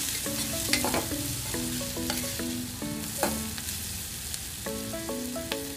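Chopped onions, green chillies and spices sizzling in hot oil in an aluminium pot while a metal spoon stirs them, with a few sharp scrapes and clicks of the spoon against the pot.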